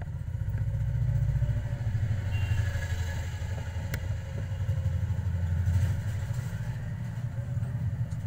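Steady low motor rumble with a fine, even pulse, like an engine running, swelling and easing slightly in loudness. A single faint click comes about four seconds in.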